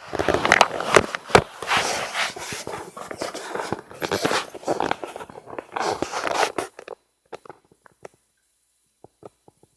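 Close rustling and scraping noise full of clicks and knocks, loud for about seven seconds, then stopping suddenly, leaving only a few faint clicks.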